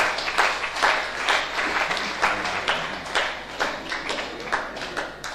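Congregation clapping, a dense run of hand claps.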